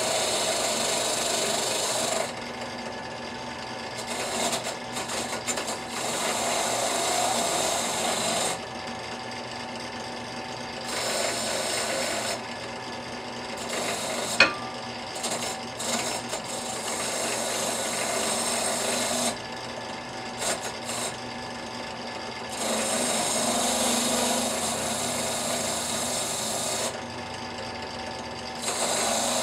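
A wire wheel spun by a small benchtop drill press, brushing the forge scale off a hardened steel hatchet head held against it in pliers. The scratchy brushing noise swells and drops back every few seconds as the head is pressed on and eased off. There is one sharp click about halfway through.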